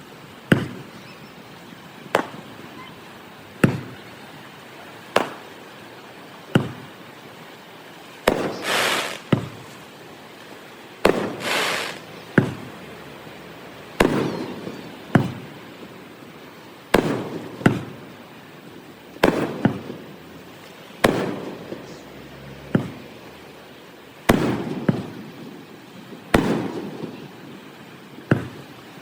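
Fireworks shells bursting in a steady string of sharp booms, about one every one and a half seconds. Several are followed by a longer crackling hiss. The recording is played back at double speed.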